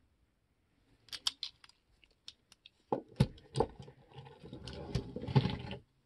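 Handling noise from a 1:50 scale diecast metal bulldozer model: a string of small sharp clicks and rattles, then a few knocks and a stretch of scraping and shuffling as models are set down and moved about on the table.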